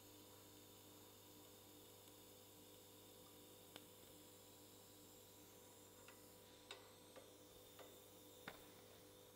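Near silence: a faint steady electrical hum, with a few soft ticks in the second half.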